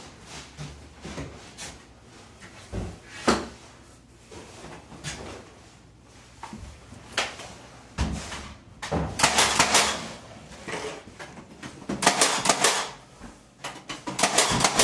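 Knocks, scrapes and clatter of wooden window trim being handled and fitted into place, with a few loud bursts of sharp clacking. Near the end come the sharp bangs of a cordless nail gun driving nails into the casing.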